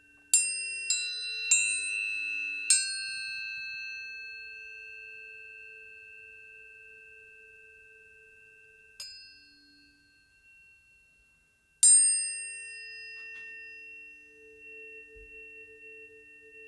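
Tuning forks struck and left ringing: four quick strikes in the first three seconds, another about nine seconds in and a louder one near twelve seconds, each with a brief bright clang that gives way to steady pure tones fading slowly.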